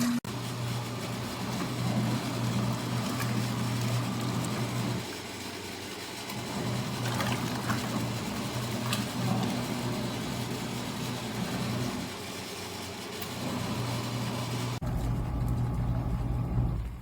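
Motor of a portable mini washing machine humming in stretches of a few seconds, broken by short pauses. The sound changes abruptly near the end.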